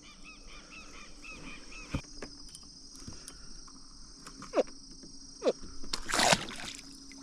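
Outdoor natural ambience: a steady high insect drone, with small bird chirps in the first second or so, two short downward-sliding calls a second apart, and a brief rush of noise about six seconds in.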